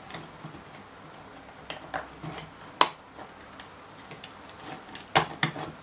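Light plastic clicks and small knocks as the back panel of a foot pedal is fitted back on by hand: a few scattered clicks, the sharpest about three seconds in, and a short cluster near the end.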